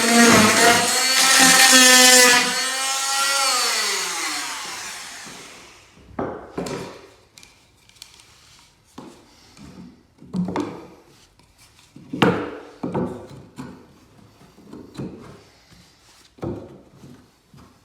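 A power tool's motor running, then winding down in pitch after being switched off, dying out about six seconds in. After that come a series of short, scattered scrapes and knocks.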